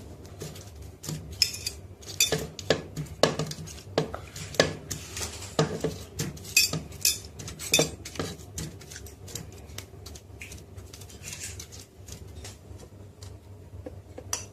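Irregular clinks and knocks of utensils and crushed ice against a blender jug as watermelon pieces, vanilla ice cream and ice are added. The clatter is dense through the first half and thins out later.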